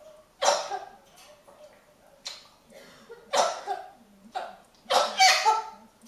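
African grey parrot giving a series of about six short, harsh mimicked noises, roughly a second apart, with the loudest near the start and at the end.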